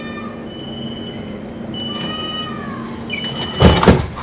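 Interior of a DUEWAG B80D light-rail car with a steady electrical hum. A high steady beep sounds three times, then the sliding doors shut with two loud bangs near the end.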